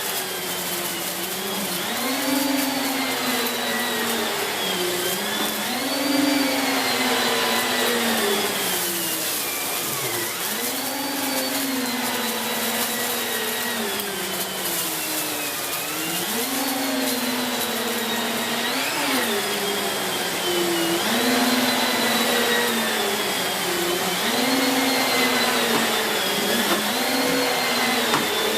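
Siemens Z6.0 Power 2500 W bagged cylinder vacuum cleaner running, a steady motor whine over rushing air. Its pitch dips and recovers every few seconds as the floorhead works the carpet.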